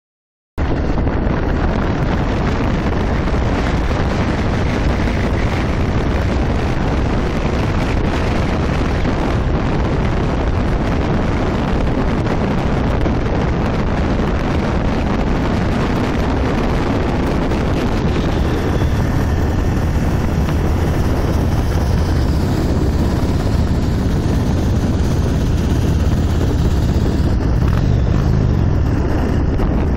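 Loud wind noise on the microphone of a motorcycle riding at road speed, with motorcycle engine sound underneath. It starts suddenly about half a second in.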